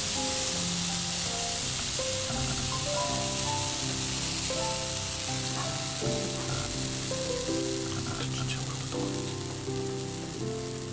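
Rice-flour pancake batter sizzling steadily in an oiled frying pan, over background music of a simple stepping melody.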